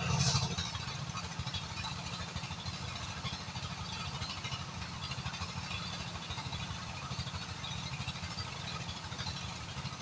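An engine running steadily at idle, with a fast, even low pulsing.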